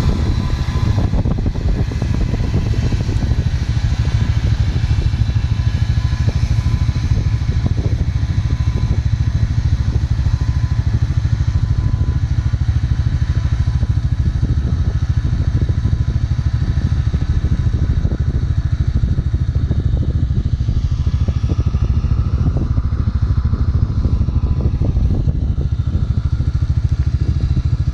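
John Deere 7530 tractor's six-cylinder diesel engine running steadily under load while driving Lely Splendimo front and rear disc mowers through grass. The higher-pitched machine tones fade as the tractor moves away, leaving a steady low rumble.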